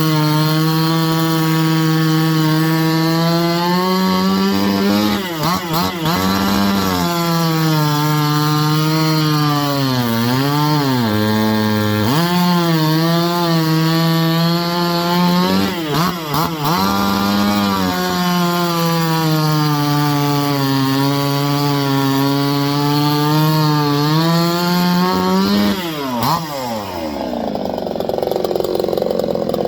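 A 54cc two-stroke Supmix chainsaw running at high revs. Its engine note dips and recovers several times. Near the end the revs fall away and the engine stops.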